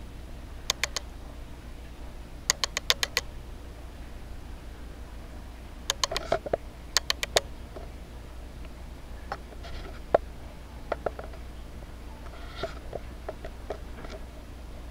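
Sharp clicks in quick clusters of three to five, followed in the second half by softer, scattered ticks and taps.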